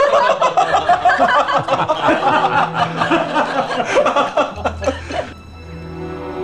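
A group of people laughing heartily together; the laughter stops about five seconds in. Soft music with long held notes comes in near the end.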